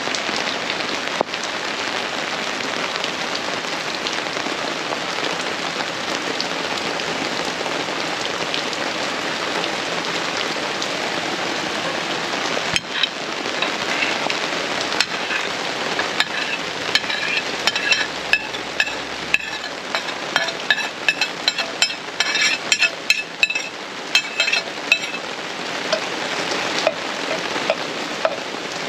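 Rain falling steadily. About halfway through, a metal spoon starts clinking and scraping against a ceramic plate and a pot in a quick irregular run of sharp ringing taps as chopped vegetables are pushed into the pot and stirred.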